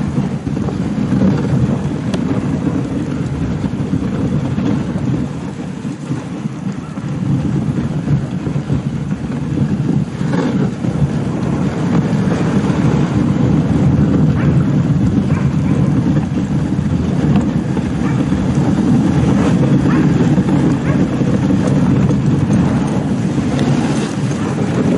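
Dog sled gliding over packed snow: a loud, steady rumble and scrape of the runners, with wind buffeting the microphone.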